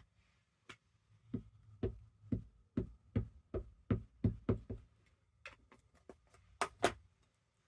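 Rubber stamp being tapped repeatedly on an ink pad to ink it: a run of quick light knocks, about two or three a second, followed by a few scattered clicks and two sharper knocks near the end.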